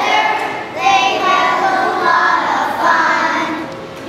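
A class of first-grade children singing together in unison, in short phrases with some held notes.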